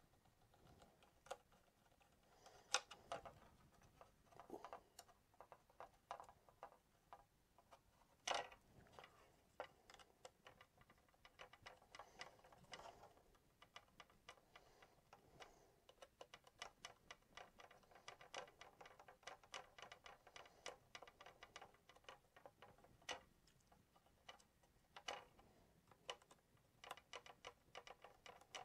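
Faint, irregular small clicks and ticks of hands handling fasteners and parts while taking apart a Prusa MK3 3D printer's heated bed, with a few louder knocks.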